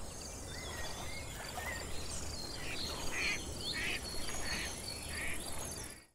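Outdoor nature ambience: several birds chirping and whistling over a steady row of high ticks, about three a second, with a low rumble underneath. It cuts off abruptly near the end.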